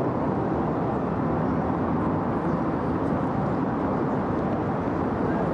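Steady, even din of city traffic outdoors, with no distinct events standing out.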